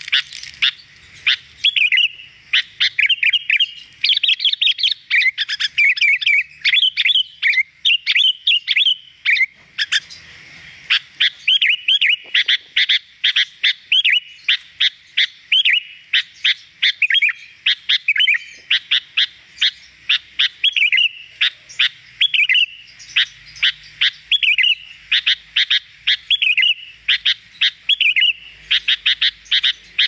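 Sooty-headed bulbul (kutilang) singing continuously: a dense run of quick chirps and short whistled phrases with hardly a pause.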